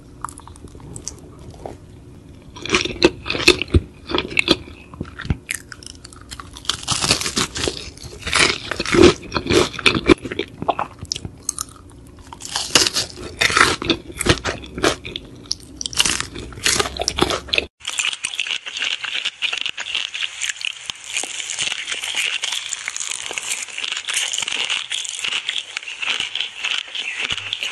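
Close-miked crunching bites and chewing of crispy fried chicken, with loud irregular crunches. About two-thirds of the way through, the sound cuts abruptly to a steady, dense crackling hiss with no low end.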